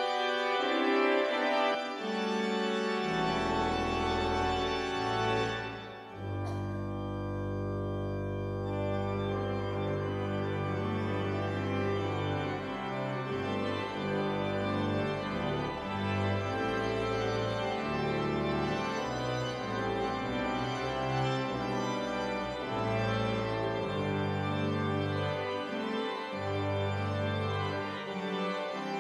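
Church organ playing the postlude at the close of the service: sustained full chords, with deep pedal bass notes coming in about three seconds in.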